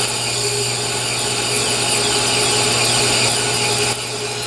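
Metal lathe running while a corner rounding end mill, used as a form tool, is fed into the spinning part to cut a radius. The cut is a steady hiss over the hum of the lathe. The cutting noise drops sharply about four seconds in.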